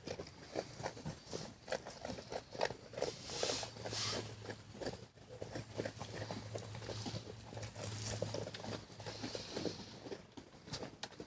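Goats moving about: soft rustling and many small irregular taps and clicks, with a faint steady low hum through the middle.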